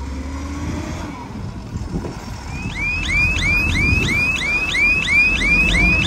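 Wheel loader's diesel engine running and getting louder, with its back-up alarm starting about two and a half seconds in: a rising electronic chirp repeated about three times a second, warning that the machine is reversing.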